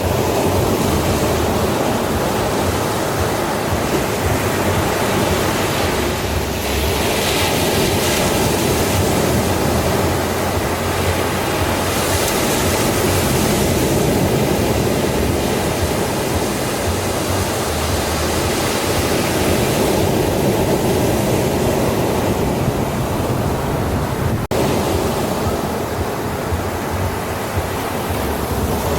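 Ocean surf washing onto a beach in a dense, continuous rush, with louder hissing swells of breaking waves about seven seconds in and again around twelve seconds in.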